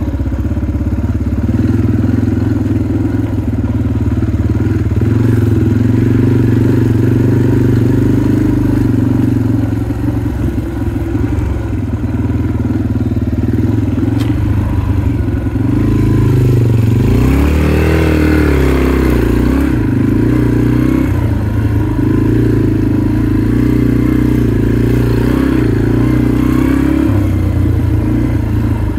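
Dirt bike engine running at low, steady trail-riding revs, the revs dipping and climbing again about two-thirds of the way through.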